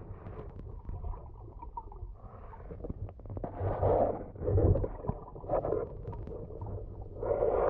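Muffled underwater noise of a diver moving, heard through the water: low rumbling and gurgling surges that swell every second or so, with a few small knocks about three seconds in.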